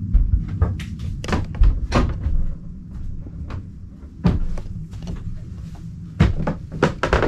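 Wooden shutters on a yacht's cabin window being worked by hand, giving a string of light wooden clicks and knocks at uneven intervals over a steady low rumble.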